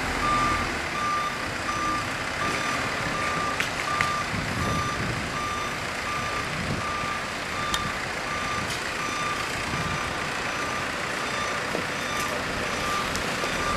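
Backup alarm of a construction vehicle beeping steadily in an even rhythm, over continuous machinery and site noise.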